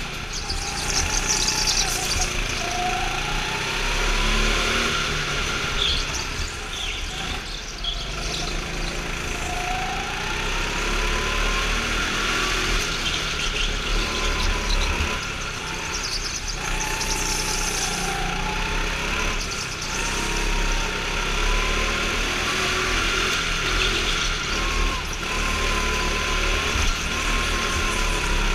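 Go-kart engine heard on board, its pitch rising and falling again and again as the kart accelerates out of corners and backs off into them.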